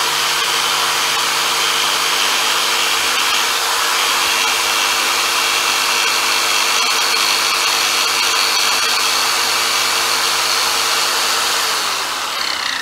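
Jigsaw with a scroll blade cutting through half-inch MDF, its motor running at a steady pitch under the rasp of the blade. Near the end the motor is switched off and winds down, its pitch falling.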